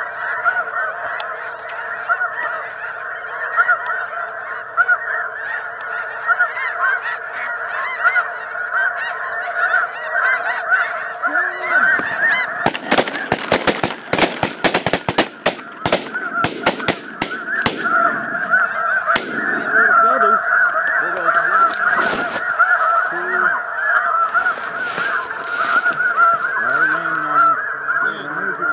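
A large flock of snow geese calling in a dense, continuous chorus of honks. About halfway through, a rapid volley of shotgun shots from several hunters lasts about five seconds, with a few more shots after it, while the calling goes on.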